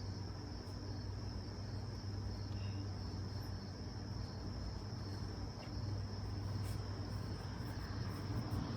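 Crickets trilling steadily, a continuous high-pitched chirring, over a low steady hum.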